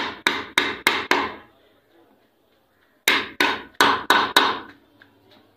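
Hammer blows on a wooden block driving a bearing into the end plate of an electric water pump motor. The blows come quickly, about three a second: five of them, a pause of about a second and a half, then six more, seating the bearing tightly in its housing.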